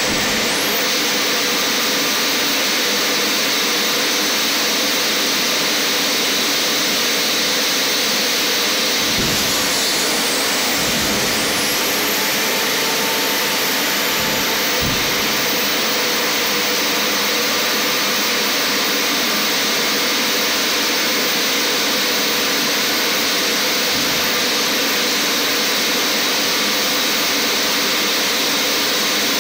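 Boeing 747-400's air-driven hydraulic pumps running hard on ground pneumatic air while the landing gear is swung, a loud steady rushing whine. A high whine briefly dips and rises about ten seconds in, and a few dull knocks come between about nine and fifteen seconds in as the gear and doors move.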